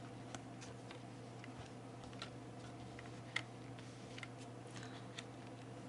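Faint, scattered clicks and taps of rune pieces being handled and laid out, the sharpest about three and a half seconds in, over a steady low electrical hum.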